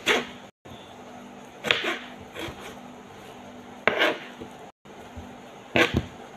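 Kitchen knife cutting tomatoes on a cutting board: a handful of separate knocks of the blade meeting the board, a second or two apart, with the last two close together. A faint steady hum runs underneath.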